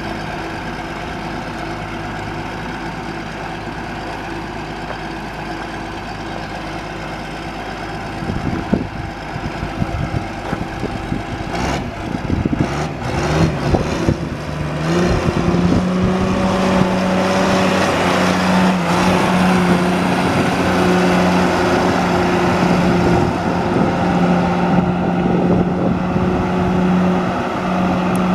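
John Deere 710D backhoe loader's diesel engine idling steadily, then revved up over a few seconds about halfway through and held at a high, steady speed.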